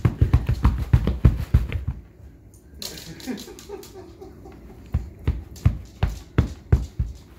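Rapid low thumps, several a second, break off about two seconds in. A brief strained vocal sound comes near three seconds, then slower thumps, about three a second.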